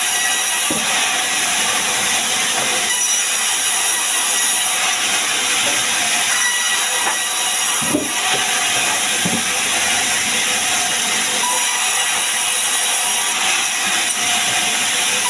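Sawmill band saw running and cutting lengthwise through a sengon log: a steady, loud hiss of the blade in the wood. A few short knocks about eight seconds in.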